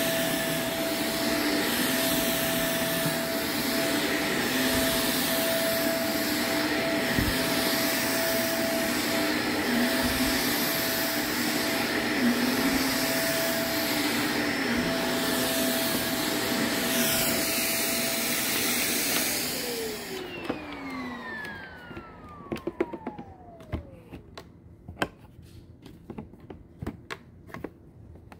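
Shark upright vacuum running steadily over a shag rug, then switched off about two-thirds of the way through, its motor whine falling in pitch as it spins down. After it stops, scattered plastic clicks and rattles as the clear dust cup is handled.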